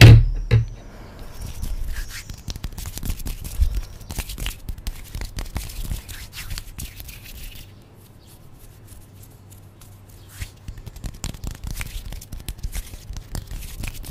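Fingers rubbing and scratching on an AKG microphone's metal mesh grille close up: a dense crackle, with a loud bump at the start as the mic is handled. It goes quieter for a couple of seconds past the middle, then the crackling picks up again.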